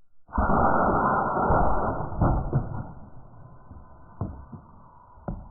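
A homemade pneumatic ball-bearing cannon fires: a sudden loud blast of released compressed air that dies away over about two seconds. A few sharp knocks follow, one about two seconds in, one near four seconds and one near the end.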